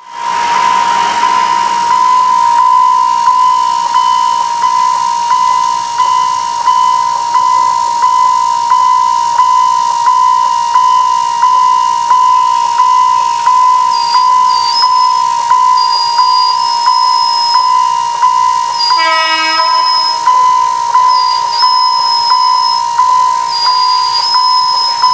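Railway level-crossing warning bell ringing steadily, a single pitched tone pulsing about twice a second. A brief horn note sounds about three-quarters of the way through.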